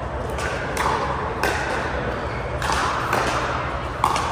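Pickleball paddles striking the plastic ball in a rally: four loud, sharp pops a second or so apart, with a few fainter hits between, over a steady low hum.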